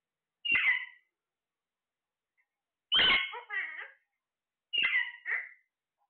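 Parakeets giving three short, harsh calls, about a second in, at three seconds and near five seconds; the last two each break into two parts.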